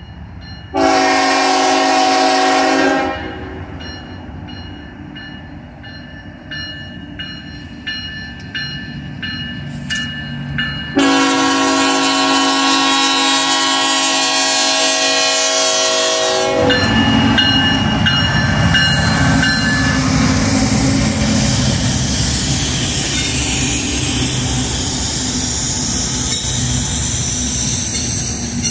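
CSX freight locomotive's air horn sounding for a grade crossing: a short blast, then a longer one, with the crossing bell ringing steadily in between. From about 17 seconds in, the locomotives and freight cars roll through the crossing with a loud rumble and wheel rattle.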